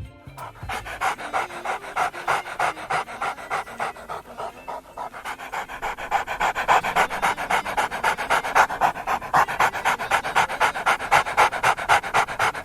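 A dog panting fast and rhythmically, about five or six breaths a second, getting louder about halfway through.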